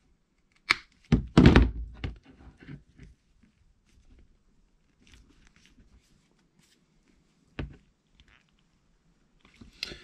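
Side cutters clicking and tearing as they strip back the plastic outer covering of an electric hedge trimmer's power cable, with a loud thunk about a second in. Scattered small clicks and crackles follow, with one sharp click near the end.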